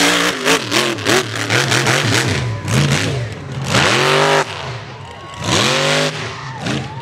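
King Sling mega mud truck's engine revving hard again and again, its pitch climbing and falling with each stab of the throttle, with rapid sharp crackling in the first couple of seconds.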